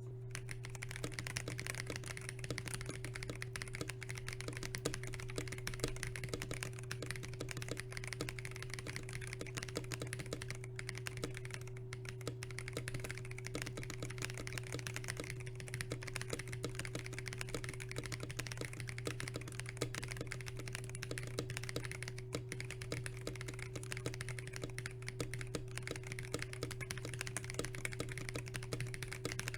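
Typing on a stock KBD67 Lite mechanical keyboard with Glorious Holy Panda tactile switches and HK Gaming Muted keycaps: a continuous, uneven stream of keystroke clacks. A steady low hum runs beneath.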